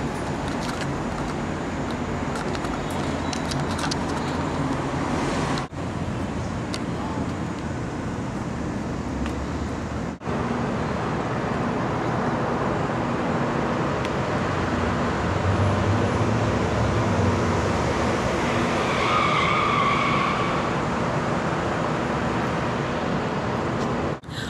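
Steady city traffic noise heard from a rooftop, with a brief pitched tone about three-quarters of the way through.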